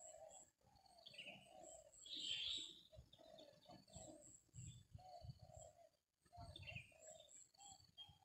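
Faint spotted dove (tekukur) cooing, a long run of repeated low coo notes, with other small birds chirping higher up.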